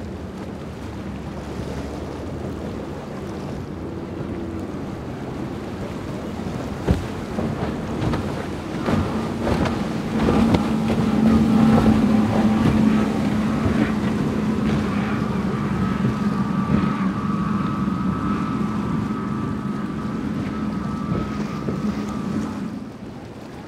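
Motorboat engines running at speed through choppy water, a steady drone that grows louder about nine seconds in and stays strong until near the end, over the splash and hiss of the hull's spray and wind buffeting the microphone. A single sharp knock about seven seconds in.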